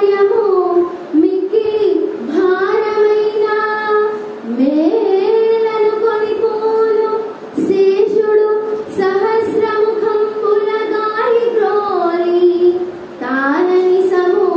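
A single high voice chants a Telugu padyam (verse) in long, held notes that glide from one pitch to the next. The phrases are broken by short breaths every few seconds.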